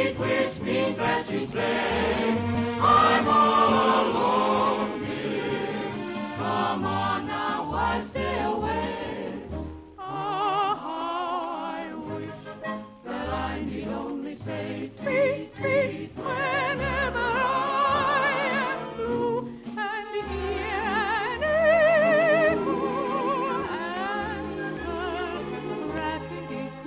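Operetta singing with orchestra, in an old radio broadcast recording: voices with a wide vibrato sing over the orchestra, with the vibrato clearest on held notes in the second half.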